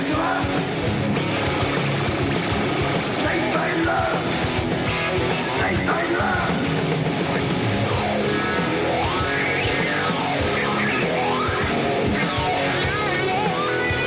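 Hard rock song in an instrumental break: electric guitar playing a lead line with sliding, bent notes over bass and drums.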